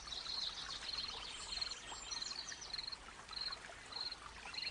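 Faint nature ambience: a cricket chirping in an even rhythm, a little under two chirps a second, with scattered short bird chirps over a soft hiss of running water.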